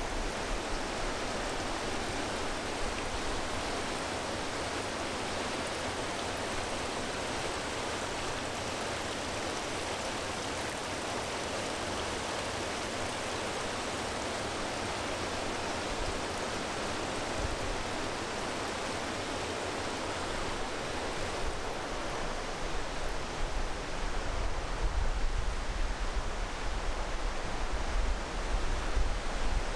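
Mountain stream in the gorge rushing steadily. In the last third, wind rumbles on the microphone.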